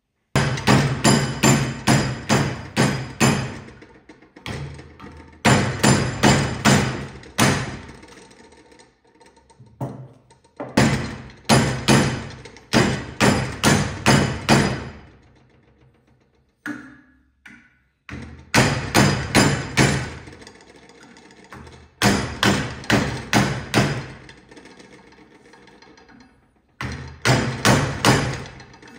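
A mallet striking a silver-and-copper mokume gane strip over a wooden mandrel, bending it into a ring. The blows come in quick runs of about four a second with short pauses between, each with a short metallic ring.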